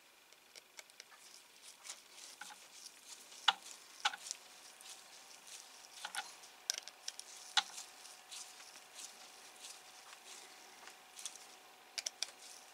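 Small precision screwdriver turning tiny screws into a plastic model panel: faint scattered clicks, ticks and scrapes, with a few sharper ticks.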